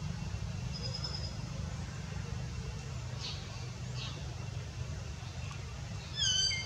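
A young long-tailed macaque giving one short, loud, high-pitched squeal that falls in pitch, near the end, over a steady low rumble. A few fainter high chirps come before it.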